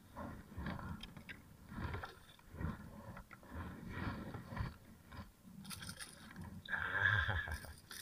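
Spinning reel being cranked to bring in a small hooked fish: a scraping, grinding noise that repeats about every 0.7 s with each turn of the handle. A louder, brighter scrape comes near the end.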